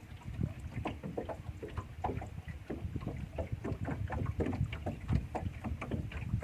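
Small waves lapping and slapping against the hull of a fishing boat as it drifts, an irregular run of short splashes and knocks.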